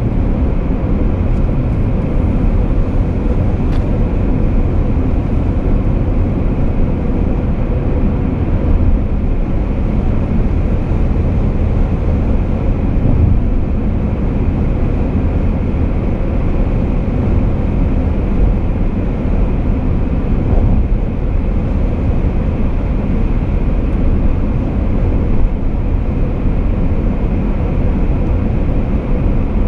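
Steady road and wind noise from a car driving at expressway speed: a continuous low rumble with a faint steady hum, and no distinct events.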